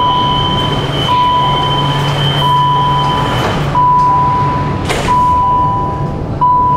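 Subway door-closing warning: a beep about a second long repeats about once a second while the sliding doors close. A higher steady tone sounds for the first three seconds or so. A single knock comes just before five seconds in as the doors shut, over the low hum of the train.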